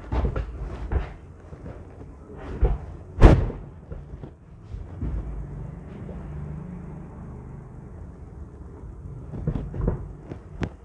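Dull thumps and knocks of hands and a body moving on a chiropractic treatment table, with one loud, sharp knock about three seconds in and a few more thumps near the end; a low hum lies under the middle stretch.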